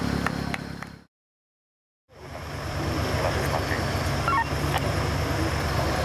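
Off-road 4x4 engine running steadily at low revs. It breaks off into a second of dead silence at an edit about a second in, then fades back in and runs on, with faint voices around it.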